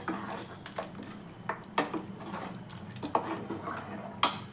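Metal ladle stirring a thin curry in an aluminium pressure cooker, knocking and scraping against the pot's sides several times at irregular intervals.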